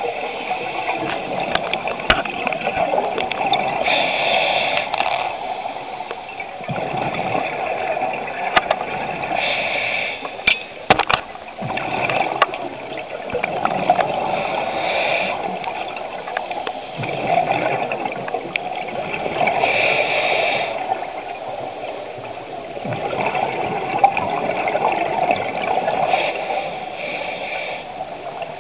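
Scuba diver breathing through a regulator underwater: a hiss on each breath in and a gurgling rush of exhaled bubbles, repeating about every five seconds. A few sharp clicks partway through.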